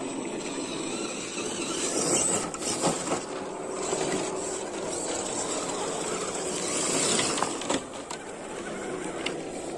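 Electric RC rock crawler trucks driving over loose rock: a continuous motor and gear whir, with stones crunching and clicking under the tyres.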